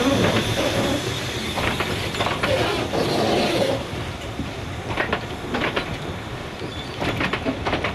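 Narrow-gauge train hauled by a steam locomotive, running steadily, with its wheels clicking over rail joints in small irregular groups over the rumble of the carriages. A steam hiss from the locomotive carries over the train noise and fades out a little under four seconds in.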